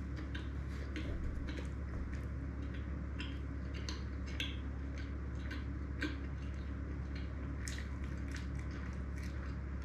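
Close-miked chewing of peinirli, a Greek bread boat filled with kasseri cheese and salami: irregular soft mouth clicks and smacks over a steady low hum.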